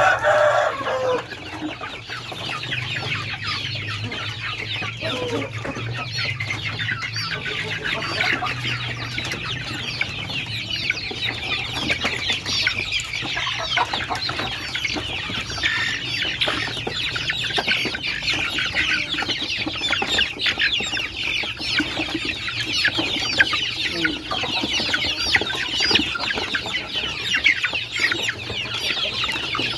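A crowded flock of young poultry calling nonstop: many short, high-pitched calls overlapping with clucking, with one louder call right at the start.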